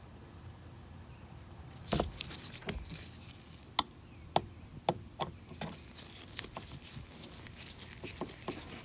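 A thump about two seconds in, then a run of sharp, irregular clicks and taps from plastic door trim pieces and clips being handled and fitted.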